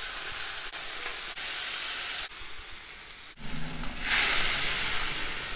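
Tempering sizzling in hot sesame oil in a metal kadai: mustard seeds, dried red chillies and curry leaves frying. About four seconds in, boiled pumpkin vathal with its water is tipped into the oil and the sizzle grows louder and brighter.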